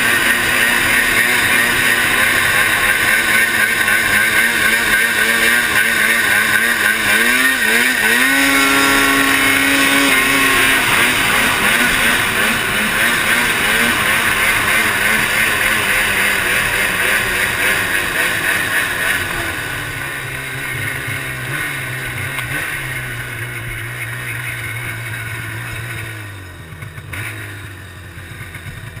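Ski-Doo Rev 800 snowmobile's two-stroke twin engine running hard as the sled skims across open water, with a loud rushing noise over it. The revs rise and fall about eight to ten seconds in, and after about twenty seconds the engine settles to a lower, steadier note as the sled slows.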